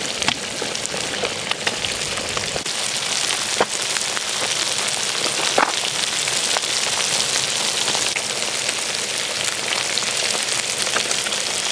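Small shemaya fish frying in a pan of hot vegetable oil and butter: a steady dense sizzle with scattered crackles and a few sharper pops.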